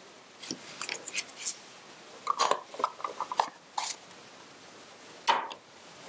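Small hard plastic parts being handled: a string of light clicks and scrapes as a printer ribbon is fitted into its round plastic storage case, then one louder snap about five seconds in as the case lid is pressed shut.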